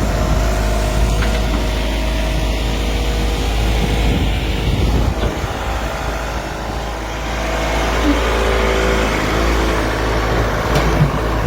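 Excavator's diesel engine running steadily under load, easing off slightly a little past halfway and then picking up again.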